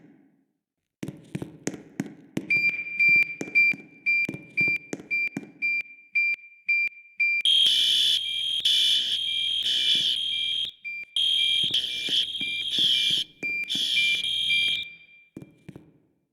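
School fire alarm system sounding during a test: a high beep repeats about three times a second, then from about seven seconds in loud horn-like pulses sound in groups of three with a short pause between groups, the evacuation pattern, and stop near the end. A quick run of knocks comes in the first few seconds.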